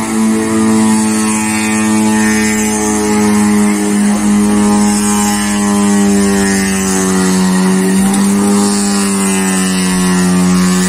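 Honda Civic's four-cylinder engine held at high revs while the car drifts on dirt, a loud, steady high-pitched drone that wavers only slightly in pitch, over a hiss.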